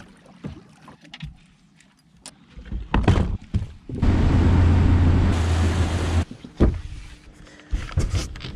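A motor on the bass boat runs with a steady low hum and hiss for about two seconds, starting and stopping suddenly. A few knocks and bumps come before it.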